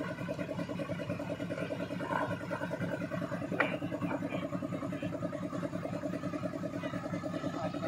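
Army cargo truck engine idling steadily, with one short knock a little past halfway through.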